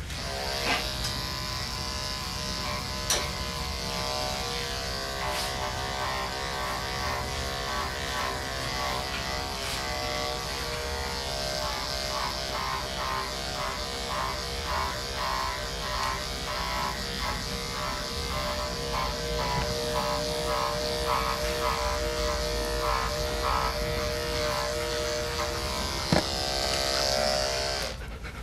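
Andis AGC two-speed electric dog clipper with a 10 blade running steadily, a constant buzz, as it shaves a dog's thick coat down.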